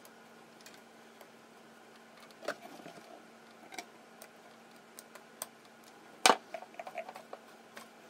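Small screwdriver working the screws on a Columbia GP-17 record player's mechanism plate: scattered light clicks and taps, with one sharper knock about six seconds in, over a faint steady hum.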